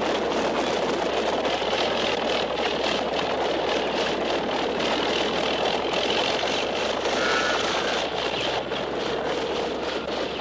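Motor vehicle engine running steadily under a dense, even hiss.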